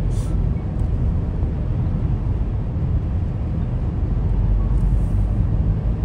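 Steady low rumble of a car driving along a road, tyre and engine noise heard from inside the moving car.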